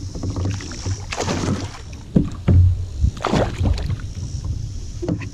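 A hooked bass splashing at the water's surface beside a kayak, in two bursts of splashing about a second in and about three seconds in, with a few sharp knocks in between and near the end as the fish is landed.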